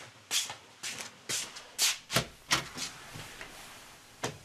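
Footsteps on a hard floor, a step about every half second, as someone walks briskly to the front door.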